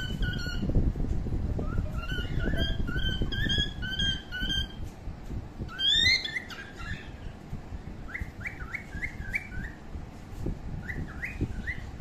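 Bird chirping: runs of short repeated chirps, several a second, then a louder sweeping call about halfway, and quick rising whistled notes in the second half. A low rumbling noise lies underneath, heaviest in the first few seconds.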